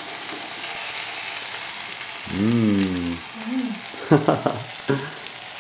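Breaded veal scallops sizzling steadily in hot vegetable oil in a frying pan. A short hummed voice sound comes a little over two seconds in, and a few brief sounds from a voice come near the end.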